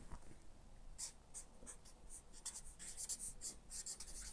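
Marker pen writing on flip chart paper: a run of short, faint strokes, starting about a second in.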